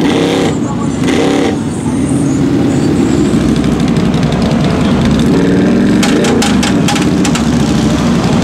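Off-road four-wheeler engine running in thick mud, revving with its pitch rising and falling, and a quick run of sharp clicks about six seconds in.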